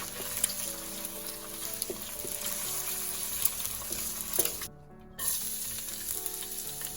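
Hot oil sizzling and crackling in a pan as food fries for fried rice, with scattered sharp pops. The sound cuts out for about half a second just before the five-second mark.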